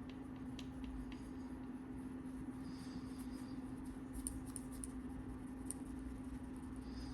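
Faint rubbing of a cloth working polishing cream into a watch's mineral crystal, in short soft strokes with a few small ticks, over a steady low hum.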